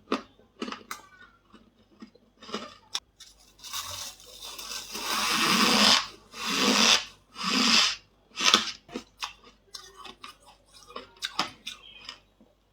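Squeaky ice being bitten and chewed up close: sharp crunching bites, a longer run of grinding crunches through the middle, then three loud bites about a second apart and scattered smaller cracks toward the end.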